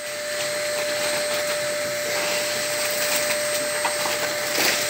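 Steady whirring of a small motor with a constant hum, joined by a few light rustles and taps of candy packets being handled.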